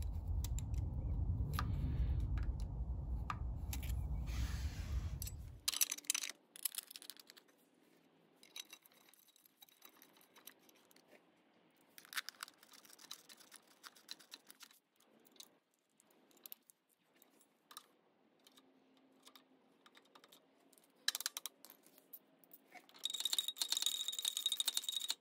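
Small clicks, ticks and metallic rattles of hand tools and a ratchet as the cover screws go back into a Honda CT70 engine. A low rumble fills the first few seconds and cuts off suddenly, and a short scraping hiss comes near the end.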